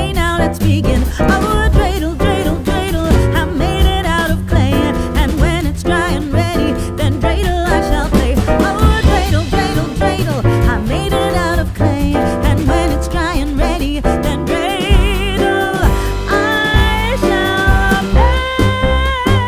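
Background music with a singing voice and a steady beat.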